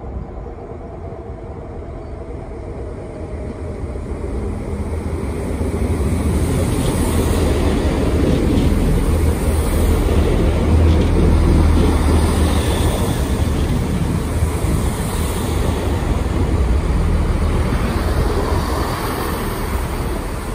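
A Class 165 Turbo diesel multiple unit runs in along the platform. The rumble of its underfloor diesel engines and wheels grows louder over the first several seconds as it comes close, then stays loud and steady.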